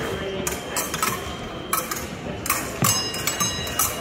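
Épée blades clashing: a run of sharp metallic clinks and clacks, one of them ringing on for about a second near the end.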